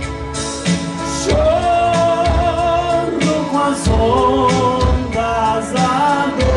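Live band playing a slow song, with a male singer holding long notes into a microphone over steady drums and bass.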